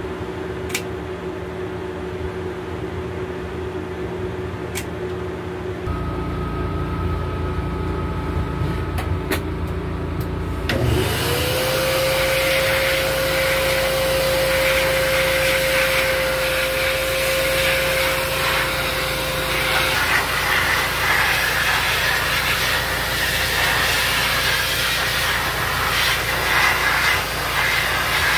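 A steady hum with a few sharp clicks of a dog nail clipper cutting. About eleven seconds in, a wall-mounted pet grooming dryer starts, its motor whine rising and settling, then blowing steadily with a loud rush of air.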